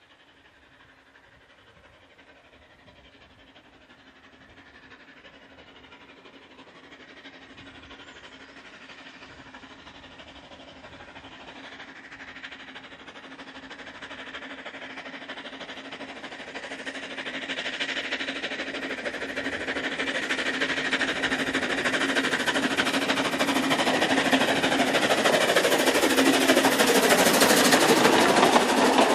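Narrow-gauge Fairlie steam locomotive Taliesin working a train, its chuffing and running gear growing steadily louder as it approaches and passing close near the end.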